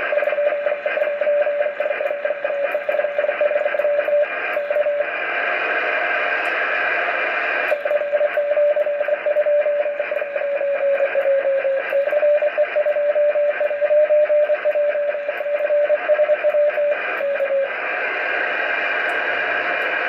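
Amateur radio transceiver receiving the FO-29 satellite downlink: steady receiver hiss with a single CW tone that wavers slightly in pitch. The tone drops out twice, about five seconds in and again near the end, and each time it leaves louder, brighter hiss.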